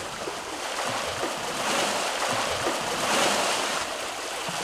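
Sea water rushing and splashing around a person being dragged through the water behind a moving sailing catamaran, swelling louder twice.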